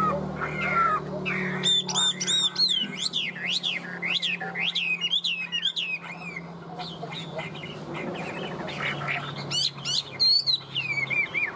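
Chinese hwamei (melodious laughingthrush) singing: loud, varied whistled song that starts about a second and a half in. It runs as quick series of repeated notes sliding up and down, eases off midway, then returns with a fast burst near the end.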